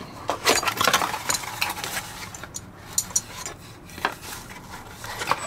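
Hands opening a cardboard box and taking out a chrome sink strainer: cardboard scraping and rustling with light metal clinks.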